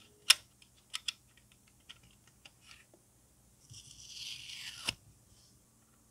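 Small plastic model parts clicking and tapping as they are handled and pressed into place, with one sharp click just after the start. Near the end a thin film is peeled off a small plastic part with a second-long tearing rasp that ends in a click.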